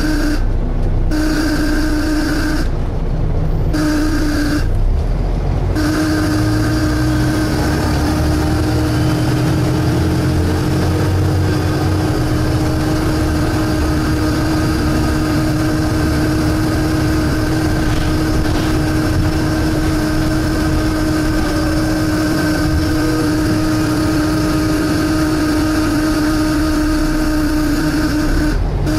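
Volvo B7TL double-decker bus's six-cylinder diesel running under way, heard from inside, with a steady whining tone over the engine rumble, which the uploader calls a loud suction noise. The whine cuts out briefly three times in the first few seconds, then carries on unbroken.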